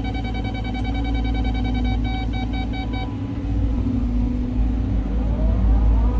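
Caterpillar 323 hydraulic excavator running with a heavy diesel rumble. A rapid electronic warning beeper sounds for about the first half and then stops. Near the end the engine and hydraulic whine rise in pitch as the machine works.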